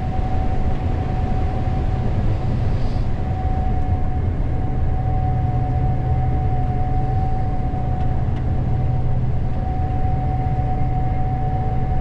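Gleaner S98 combine running steadily, heard from inside the cab: a low engine and machinery hum with a constant whine over it.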